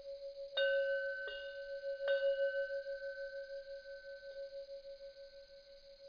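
A deep bell chime struck three times in quick succession about a second apart, then once more faintly, each strike ringing on in one wavering, pulsing hum that slowly fades.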